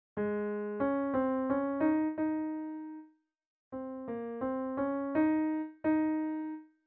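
Piano playing the alto line of a choral piece one note at a time, with no chords or voice. Two short phrases of about six notes each, with a brief gap between them, and the last note held.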